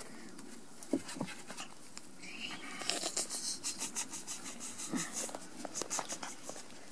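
Month-old Rat Terrier puppies playing and tugging at a stuffed toy in the grass: a few faint, short squeaks, then a stretch of crackly rustling and scratching from about halfway in.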